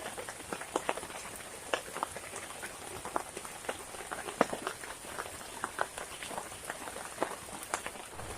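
Heavy rain falling in a forest: a steady hiss with many irregular, sharp individual drop hits.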